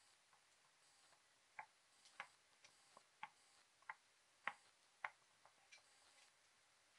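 A run of about ten sharp, separate taps on hard stone steps, a little under a second apart, over otherwise near silence.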